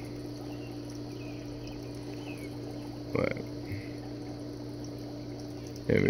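Steady low hum made of two even tones, with a brief voice sound about three seconds in.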